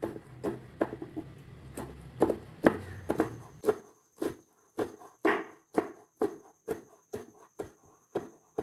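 Knife chopping on a wooden cutting board: short, even knocks at about two strokes a second.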